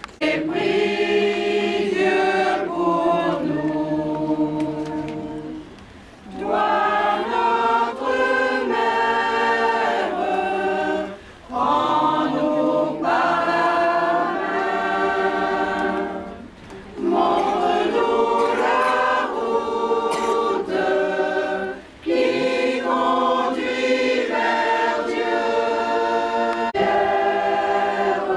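Mixed choir singing a hymn to the Virgin Mary without accompaniment, in phrases of about five seconds with short breaks for breath between them.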